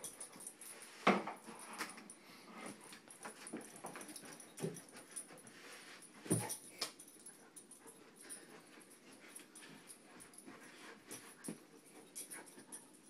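English mastiff puppy breathing and shuffling as it humps and mouths a plush rocking horse, with a few sharp knocks from the wooden rocking horse, the loudest about a second in and about six seconds in.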